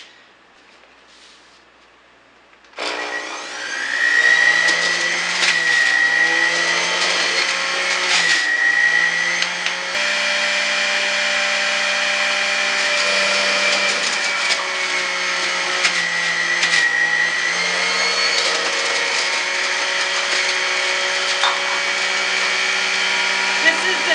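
Electric juicer switched on about three seconds in, its motor running steadily and loudly as produce is fed down the chute, the tone shifting briefly a couple of times under the load.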